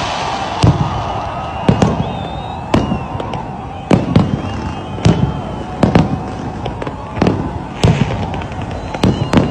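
Fireworks display: aerial shells bursting in sharp bangs about once a second, sometimes two close together, over a steady rumble of the show, with faint high whistles in between.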